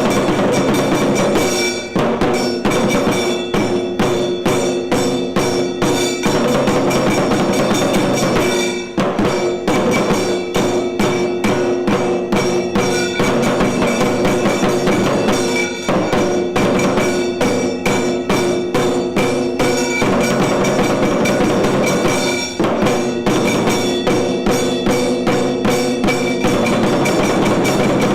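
Tiru Kailaya Vadyam temple ensemble playing: drums and ringing metal percussion beat a fast, dense rhythm over steady held tones.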